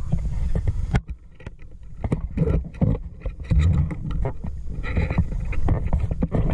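Water sloshing and splashing around a spearfisher moving through the water, with irregular muffled knocks and bubbling. About a second in the sound drops suddenly, then returns in uneven surges.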